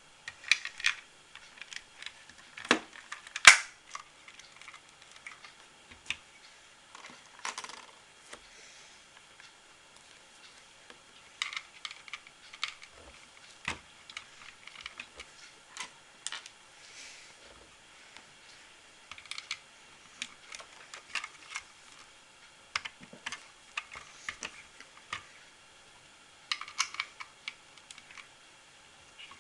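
LEGO bricks clicking and rattling as they are handled and fitted together, in irregular clusters of small plastic clicks with quiet gaps between them. One sharp click about three and a half seconds in stands out as the loudest.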